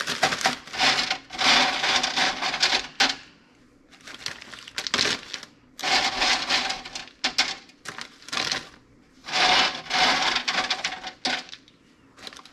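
Frozen okra slices scraping and clattering on a wire cooling rack over a metal sheet pan as hands push them loose and gather them up, in about seven bouts of a second or two with short pauses between, with a plastic zip-top freezer bag rustling as well.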